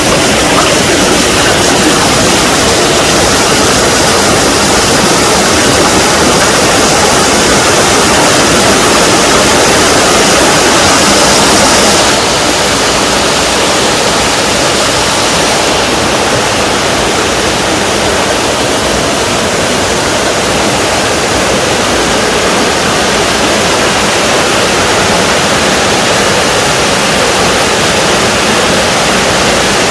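Small valley waterfall: water pouring and splashing in a steady, loud rush. About twelve seconds in, the sound drops a little in level and changes tone.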